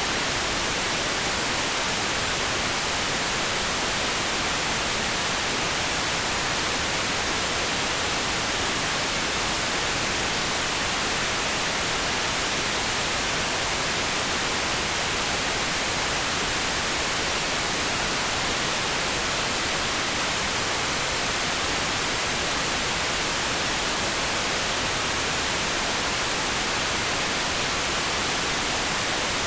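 Steady electronically generated pink noise: an even, unchanging hiss with no breaks or changes.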